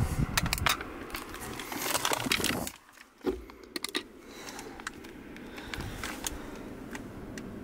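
Scattered light clicks and knocks with rustling, the sound of someone moving about and handling things around a truck's cab, with a short dead gap about three seconds in.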